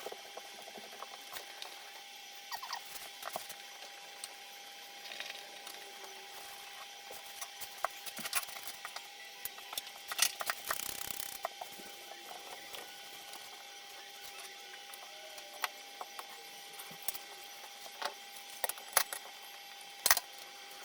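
Scattered rustling, scraping and small clicks of wallpaper and tools being handled and pressed against a wall, with a louder rustle about ten seconds in, over a faint steady high hum.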